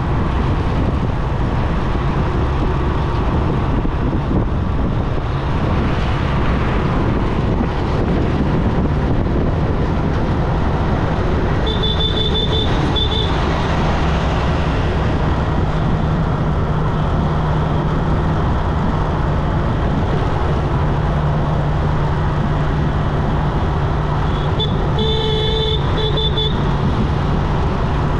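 Motorcycle riding along a busy highway: steady engine hum with wind and road noise and passing traffic. A vehicle horn honks in two short bursts about twelve seconds in, and again, longer, near the end.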